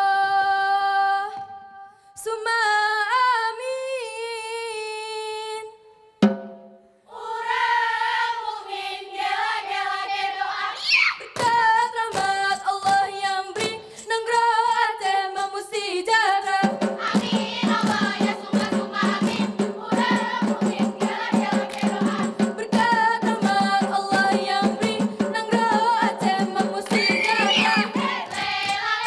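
A woman's voice sings long, held, wavering notes; about six seconds in a sharp slap starts off a group of women singing in chorus over fast, dense hand-clapping and body slaps, which grow fuller and busier about two-thirds of the way through.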